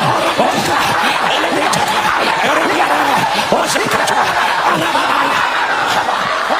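Many voices praying aloud at once, overlapping into a steady babble of a congregation praying together.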